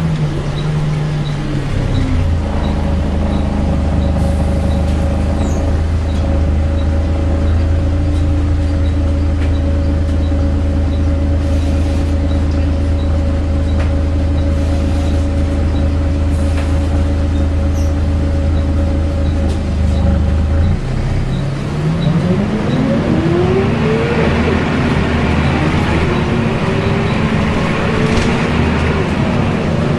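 Volvo B10BLE bus's rear-mounted diesel and cooling fan heard from inside the bus: the engine slows in the first couple of seconds and settles to a steady idling hum, then about 21 seconds in it pulls away, engine and transmission whine rising in pitch over a building rush from the cooling fan.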